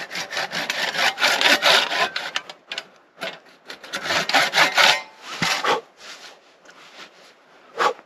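Japanese pull saw cutting into a wooden log, deepening the ring of stop cuts around a mallet handle: quick back-and-forth strokes for about five seconds, then a few slower, quieter strokes before it stops.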